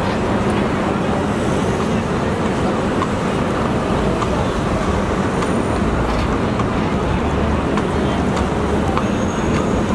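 Steady, busy city street traffic noise: vehicles running past in a dense urban intersection.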